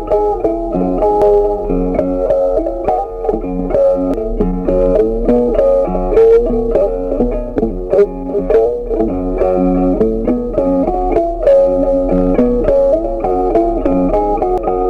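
Background music led by a plucked guitar: a steady run of short, quick notes.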